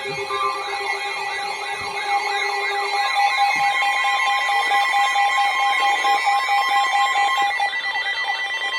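Tornado warning alarms sounding together: a rapidly warbling siren over steady electronic alert tones, growing louder over the first few seconds and then holding.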